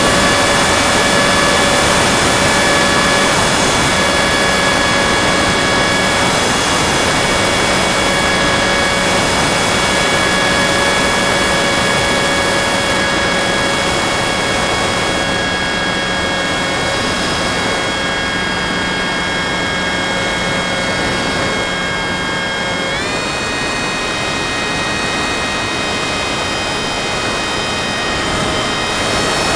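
FPV model aircraft's motor and propeller droning steadily, heard from its onboard camera with a constant rush of air over the microphone; the motor's whine steps up slightly in pitch late on.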